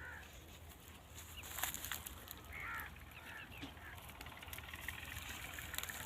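A few short animal calls, repeated with pauses between them, over a low steady background hum.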